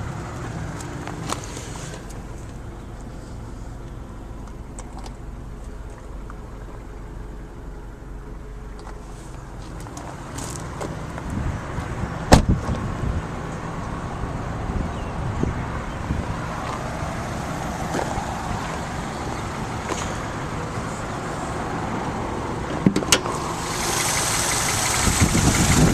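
Car engine idling steadily, with a sharp click about halfway through. A burst of wind-like hiss comes in near the end.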